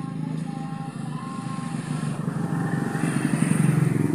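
Motorcycle engines of passing road traffic, one growing louder as it comes close in the second half.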